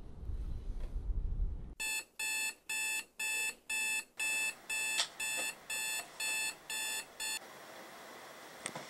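Electronic alarm beeping, a bright pitched beep about twice a second, a dozen or so times, then cutting off suddenly near the end. Before it starts there is a couple of seconds of low rumbling noise.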